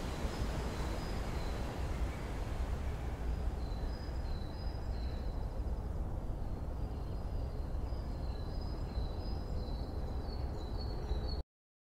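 Steady rush of ocean surf, with small birds chirping in short, high, repeated calls from a few seconds in. The sound cuts off abruptly near the end.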